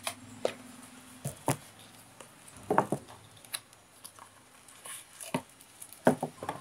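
Cardboard and paper packaging being handled as a small box is opened: scattered light clicks, taps and rustles, with a denser flurry about three seconds in.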